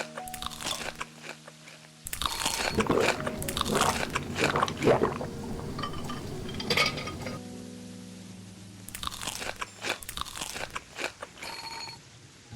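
Close-up crunching as a person bites and chews crisp food, in two long bouts separated by a short pause, over soft background music.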